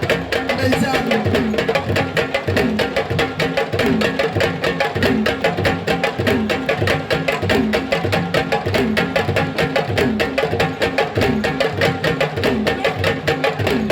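Drum-led music with fast, dense drumming and a short low figure repeating about once a second.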